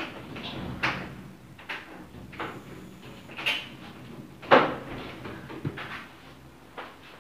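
About seven irregular clicks and knocks, roughly a second apart, from a Shimano Ultegra 14000 spinning reel being handled as it is greased. The loudest knock comes about four and a half seconds in.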